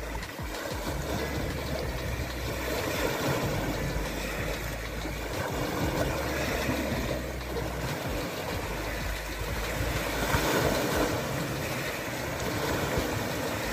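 Sea waves washing in and breaking on shore stones, a steady rushing that swells louder a few times, strongest about ten seconds in.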